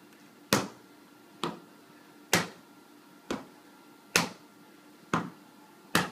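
A ball being bounced and hit over and over, seven sharp smacks evenly spaced about once a second, alternating louder and softer.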